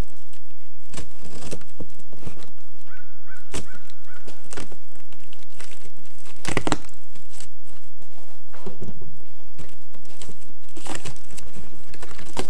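Plastic wrapping and cardboard packing crinkling and rustling as they are handled, with irregular knocks and scuffs, the loudest burst about halfway through. A brief steady high tone sounds about three seconds in.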